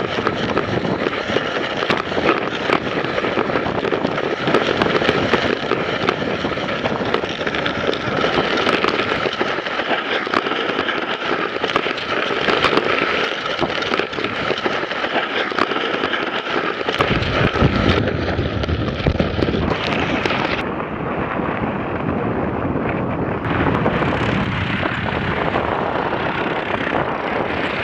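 Wooden sled's runners scraping and rattling over packed, icy snow at speed: a loud, dense crackling clatter with wind on the microphone. About two-thirds of the way in the sound turns duller, with more low rumble.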